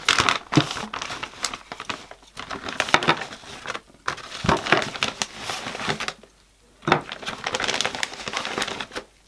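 Plastic bag of resin model parts crinkling and rustling in irregular bursts as it is opened and rummaged through, with a brief pause about two-thirds of the way through. A few light knocks as resin pieces are set down on a wooden desk.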